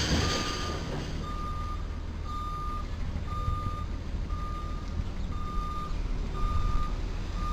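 Truck's reversing alarm beeping about once a second at one steady pitch, over the low running of the truck's engine; a brief burst of noise sounds right at the start.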